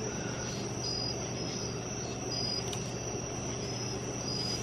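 Crickets chirping at night: a steady high trill with short high chirps repeating over it.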